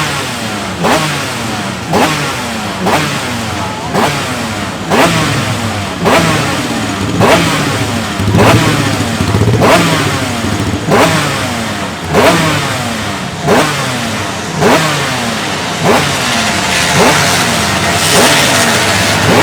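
Two-stroke racing motorcycle engine being revved in repeated throttle blips, roughly once a second; each blip shoots up sharply in pitch and then falls back.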